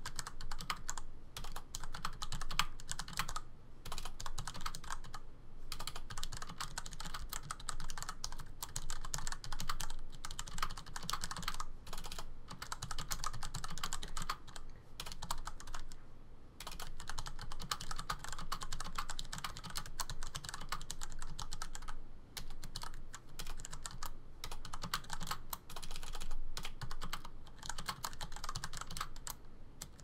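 Typing on a Das Keyboard Model S (Das Keyboard 3) with tactile, non-clicky Cherry MX Brown switches and stock ABS keycaps: a fast, continuous clatter of keystrokes with a few short pauses.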